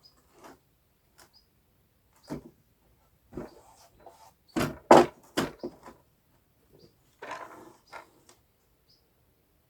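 Irregular knocks and scraping of timber being worked with hand tools while wall plates are prepared for joining, with the loudest run of sharp strikes about halfway through.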